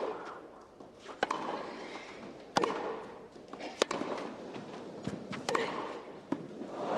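Tennis rally on a grass court: rackets striking the ball, four sharp hits about every one and a half seconds, with fainter knocks in between.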